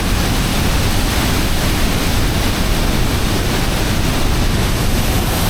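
Large waterfall's water pouring down close by: a loud, steady rush of noise.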